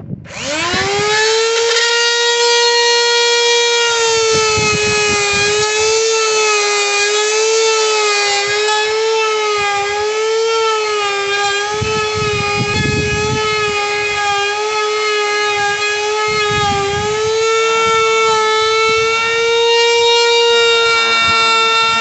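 Handheld trim router switched on, its motor spinning up with a rising whine and then running at a steady high whine. The pitch wavers slightly as the bit cuts hinge recesses into the edge of a wooden door.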